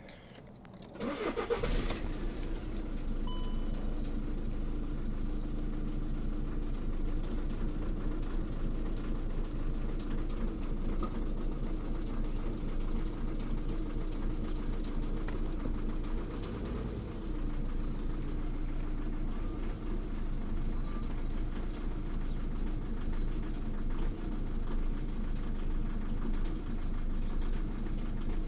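Volkswagen Polo 1.6 TDI four-cylinder diesel engine cranking and catching about a second and a half in, then idling steadily.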